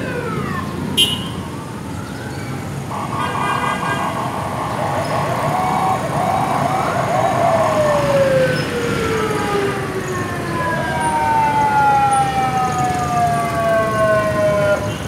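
Sirens on convoy vehicles sounding as the cars pull away, several overlapping wails sliding down in pitch, with a warbling yelp and a steady tone partway through.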